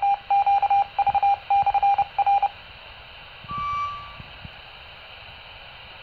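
A Baofeng UV-5R handheld transceiver's speaker plays a single beep tone keyed on and off in uneven short and long pieces, like Morse code: the repeater's identifier. After about two and a half seconds the beeping stops and steady radio hiss follows, with one short higher beep about three and a half seconds in.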